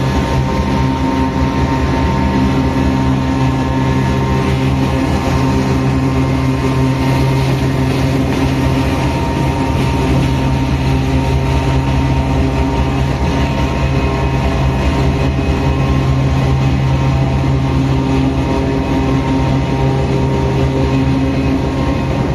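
GE C44-9WM (Dash-9) diesel-electric locomotive running under power, its engine and GE752AH traction motors making a loud, steady drone with a constant hum that holds one pitch throughout.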